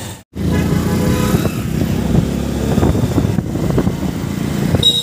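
Motorcycle engines running while riding through town streets, heard from on a moving motorbike. The sound cuts in after a brief dropout at the start.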